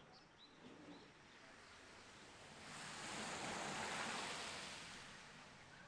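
An SUV passing on a wet road, its tyres hissing on the water. The hiss swells to a peak a few seconds in and fades away as the car goes by.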